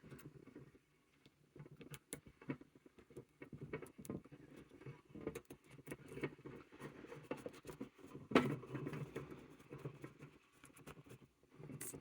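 Hands working artificial flowers into a small decorative bird cage: soft, irregular rustling and small clicks of plastic and fabric, with one louder rustle about eight seconds in.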